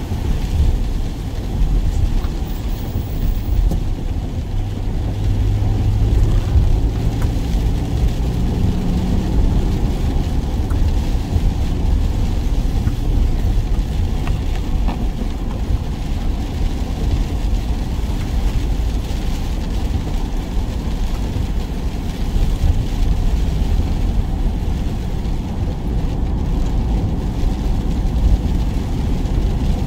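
Work van driving: steady engine and road rumble, with the engine note shifting slightly about a third of the way in.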